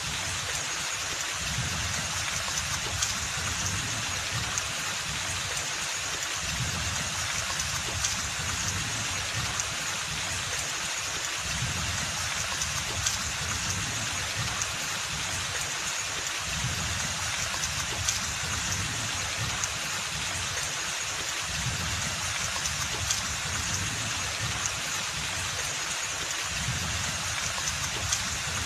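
Steady rain falling on forest foliage, a continuous hiss dotted with the small ticks of single drops, over an uneven low rumble.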